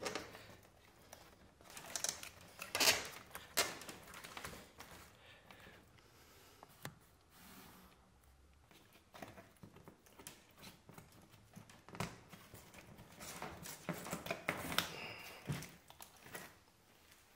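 Birch bark rustling and crinkling as a spruce root lashing is pulled through it and worked tight along a stitched seam, in irregular bursts with small clicks.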